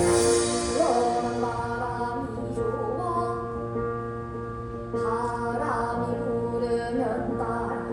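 Korean traditional (gugak) music: a wavering melodic line that bends and slides in pitch over steady sustained drone tones.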